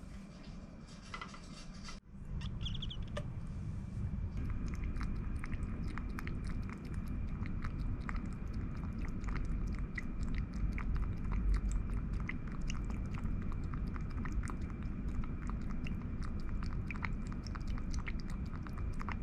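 Kitten chewing: rapid, irregular crunching clicks over a low steady rumble. A brief faint high squeak comes about three seconds in.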